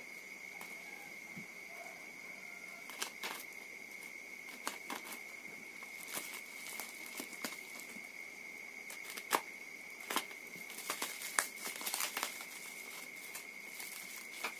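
Packing tape and wrapping being peeled and torn off a small parcel by hand: irregular crinkling and crackling, sparse at first and busier in the second half, over a steady faint high-pitched tone.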